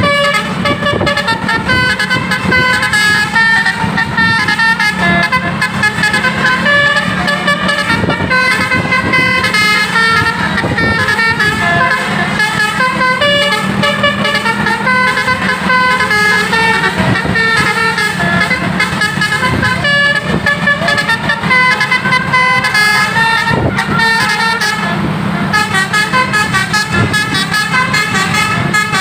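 Telolet basuri multi-tone bus horn playing a winding melody, its notes stepping up and down several times a second without a break, over a steady low drone.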